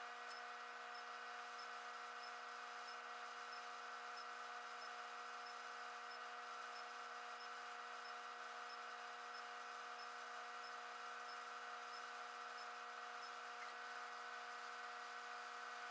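Faint steady electrical hum of an LH-15a induction heater, made of several steady tones, with a faint high tick about every half second. The hum stays the same while the heater's output switches on and off.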